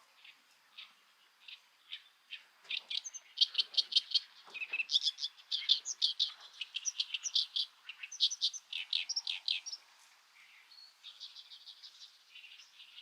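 A small songbird chirping: scattered short high chirps, then a fast, loud run of repeated chirps, then a fainter quick trill near the end.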